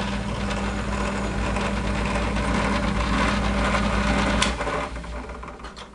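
Drill press running while a stack of nylon spacers spins against a fixed cutter, being turned down in outside diameter: a steady motor hum under harsh cutting noise. About four and a half seconds in the cutting stops as the work is lifted clear, and the sound fades to a much quieter level.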